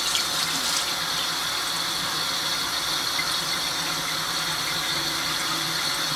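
A faucet runs steadily into a sink, its stream splashing over hands that work a wet makeup sponge against a bar of soap.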